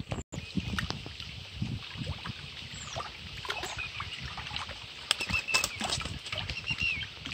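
Riverside ambience: scattered light knocks and rustles from handling near the microphone, with small birds chirping repeatedly from about five seconds in.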